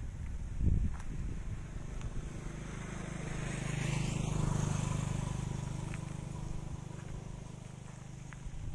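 A motor vehicle's engine passing by: a steady low hum that swells to its loudest about halfway through and then fades away. A low thump comes near the start.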